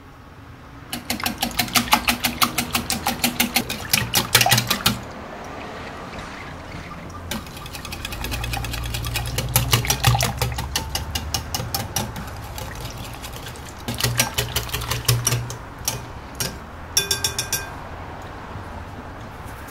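Metal wire whisk beating an egg and yogurt batter in a glass bowl: fast, regular ticking of the wires against the glass, in four spells with short pauses between them.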